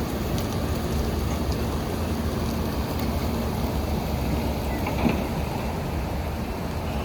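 Steady rushing of creek water flowing over stones, with a brief knock about five seconds in.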